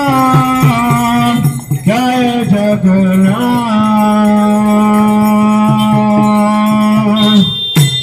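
A man sings a devotional kirtan chant through a microphone and amplifier, with gliding phrases and one long held note. Under the voice he beats a mridanga, a laced two-headed barrel drum.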